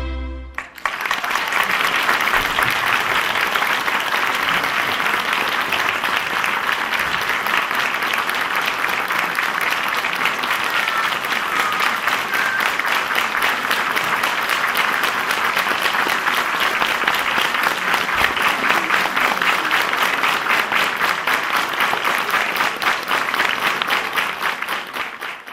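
A large theatre audience applauding: dense, steady clapping that starts just after the last notes of a fiddle tune and cuts off abruptly near the end.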